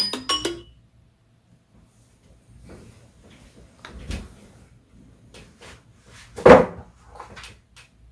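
A few scattered knocks and bumps in a small room, the loudest a thud about six and a half seconds in. A few ringing notes die away right at the start.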